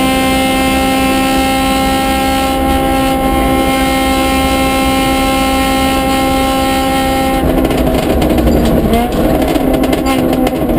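Honda Civic F2000 rally car's four-cylinder engine, heard from inside the cockpit, running flat out on a straight at one steady note. About seven seconds in the steady note breaks off into a rougher, uneven engine sound with short pitch changes as the car comes off full throttle for the bend ahead.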